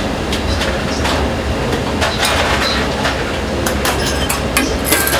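Busy restaurant kitchen noise: a steady low rumble with frequent clattering and knocks.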